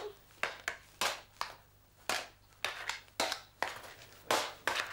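Sticks clacking against each other in a play sword fight: about a dozen sharp knocks at an uneven pace.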